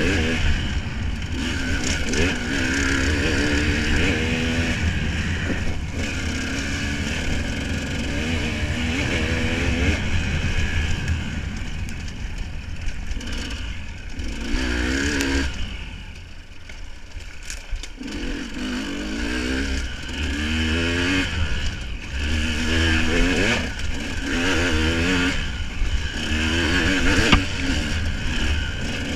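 A motor vehicle engine running and revving repeatedly, its pitch climbing in sweeps and then dropping back, with a quieter stretch about halfway through.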